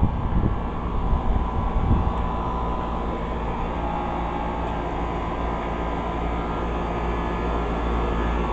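2003 Carrier 38BRC 4-ton central air conditioner condensing unit running steadily: a constant compressor and condenser-fan hum over a low rumble. A few brief thumps in the first two seconds.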